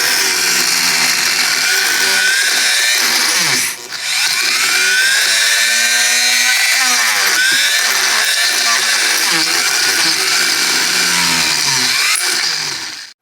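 Dremel rotary tool running at high speed, grinding hollowing out bone material inside a turkey wing bone. Its pitch sags and recovers as the bit bites into the bone, it drops off briefly about four seconds in, and it cuts off just before the end.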